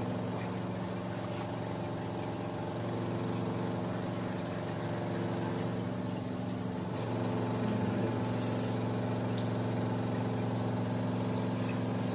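A steady mechanical hum of a running motor or engine, one even droning pitch with its overtones and no changes in speed.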